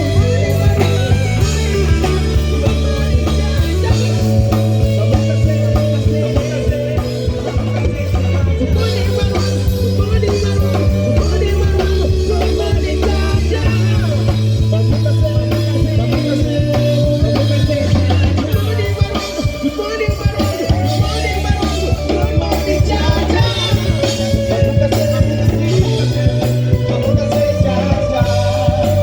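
Band music playing throughout: a steady bass line that changes notes every few seconds, with guitar, drums and singing.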